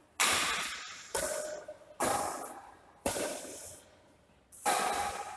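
Badminton racket strings hitting a shuttlecock five times in a rally, about one hit a second with a longer gap before the last, each sharp crack ringing on in the echo of a large hall.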